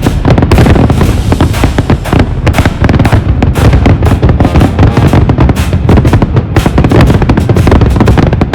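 Music with a heavy drum beat, mixed with the bangs and crackle of a fireworks display.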